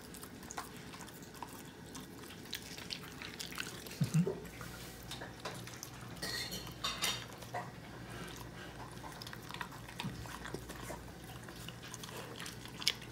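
Small dogs eating from stainless-steel bowls: scattered faint clinks and knocks of snout and food against the metal bowl, with a few louder knocks about four and seven seconds in.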